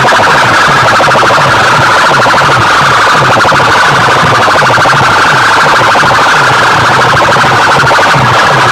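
Music or a DJ siren-style track blasted at full volume through a bank of horn loudspeakers, harsh and distorted, with a fast, evenly repeating pulse of short falling notes underneath.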